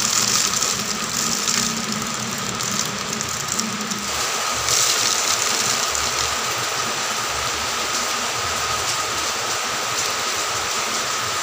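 SP36 superphosphate fertiliser granules poured from a plastic bag into a plastic water bottle: a steady rattling hiss of granules running down into the bottle.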